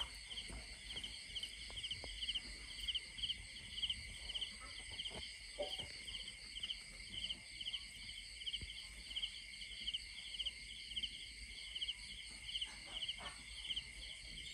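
Night insects calling steadily: a high, even drone under a rhythmic chirp repeating about twice a second. Faint rustles and clicks in dry leaves come and go, most clearly near the middle and toward the end.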